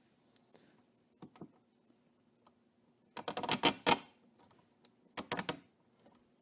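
Handling noise as the camera is moved and repositioned: a few light clicks, then two bursts of rapid clicking and knocking, at about three seconds in and again near five seconds.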